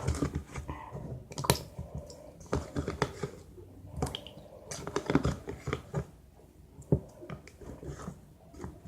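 A spoon clicking and scraping against a small cup in irregular taps while stirring a gel-and-salt slime mixture.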